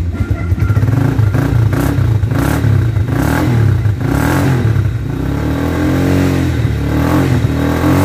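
Freshly restored Motorstar Z200R motorcycle engine being revved by hand on the throttle: several quick throttle blips with the revs jumping up and falling back, then a longer, smoother rise and fall in revs in the second half.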